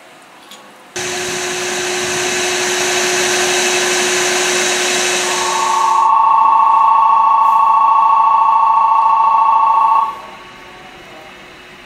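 A loud steady whirring machine noise with a low hum for about five seconds, then a loud two-tone electric signal held for about five seconds that cuts off suddenly, heard beside an electric train standing at a snowy station platform.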